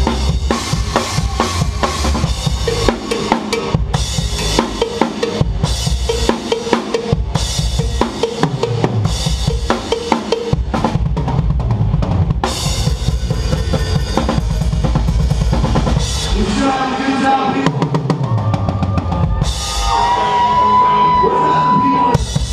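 Rock band playing live, with the drum kit loudest: driving kick drum and snare hits, including a fast even run of kick strokes a little past the middle. Near the end the drums thin out under held, bending pitched notes.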